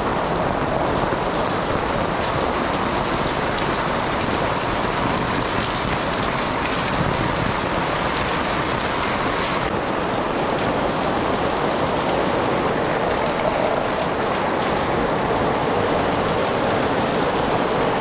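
Torrential rain pouring steadily onto a wet concrete alley, a dense, even hiss with no let-up.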